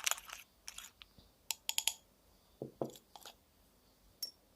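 A runny slime mixture thickened with shaving foam being stirred in a bowl, giving scattered soft, wet clicks and squelches.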